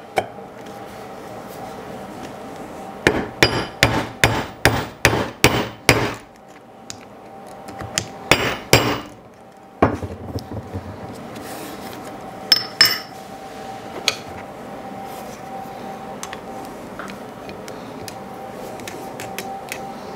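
Hammer striking a rivet-setting tool on a copper rivet on a steel bench block: a quick run of about nine sharp blows, roughly three a second, then two or three more a couple of seconds later, followed by a few light taps and clicks.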